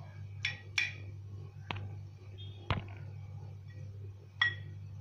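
A pastry brush clinks against a ceramic bowl as it is dipped in beaten egg and stirred: about five light, separate clinks, some with a short ring. A steady low hum runs underneath.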